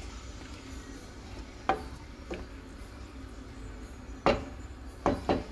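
Wooden spatula stirring a pot of thin curry gravy, knocking against the pot about five times, the loudest knock about two-thirds of the way through, over a low steady hum.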